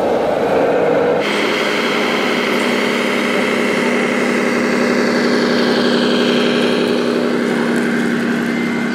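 Radio-controlled Scania model trucks driving, giving a steady engine-like hum with a higher whine. The sound changes abruptly about a second in.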